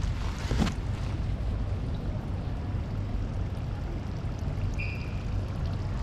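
Steady low rumble of outdoor background noise, with a brief knock about half a second in and a short high tone near five seconds.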